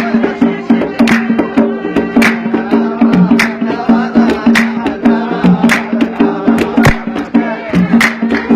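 Yemeni dan folk music in a maqsum rhythm: sharp drum strikes about twice a second over a sustained melody line.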